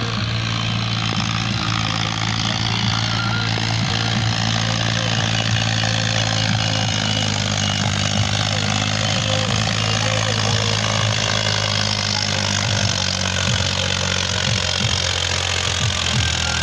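Diesel tractor engine running steadily as it pulls a heavily loaded trolley, so heavy on the hitch that the tractor's front wheels lift off the ground.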